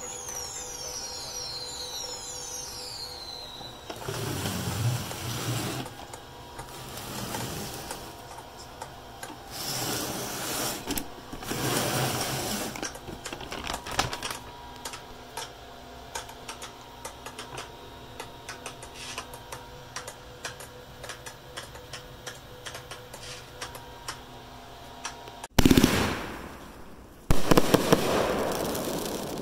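Scattered clicks and rustling noise for most of the time. Then near the end a Boom Wow Focus 25-shot firework cake begins firing: two loud launch bangs about a second and a half apart, each followed by a fading hiss.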